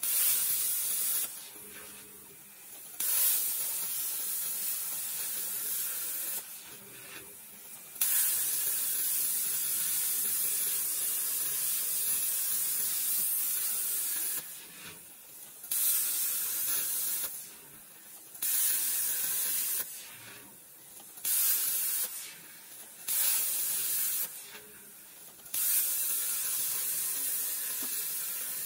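CNC plasma cutter's torch cutting sheet metal: a loud hiss that cuts off and starts again about eight times, as the torch stops after one shape and pierces the next.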